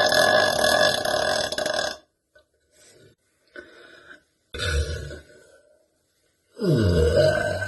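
A woman burping loudly three times: a long burp that ends about two seconds in, a short one about four and a half seconds in, and another long burp near the end that drops in pitch as it begins.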